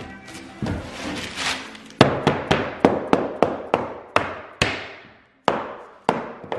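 Mallet tapping the interlocking puzzle joint of two epoxy-wetted plywood boat panels to seat it: about a dozen sharp blows on the wood, about three or four a second at first, then more spaced out toward the end.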